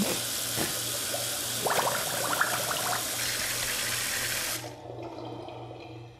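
Kitchen tap running into a sink as hands are washed under it. The water stops suddenly about four and a half seconds in as the tap is turned off.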